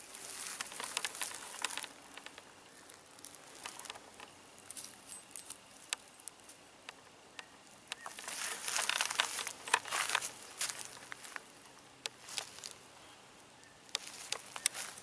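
Footsteps rustling and crunching through dry leaf litter and twigs on a woodland floor. They come in a few bouts, about the first two seconds, again for a couple of seconds past the middle, and near the end, with scattered small crackles and clicks between.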